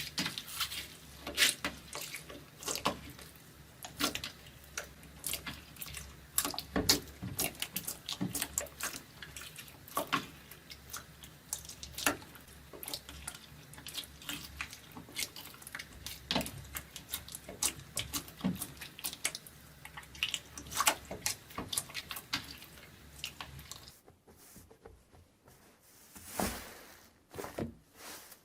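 Slime being squeezed and worked, giving a dense, irregular run of wet clicks and pops; it turns quieter and sparser for the last few seconds.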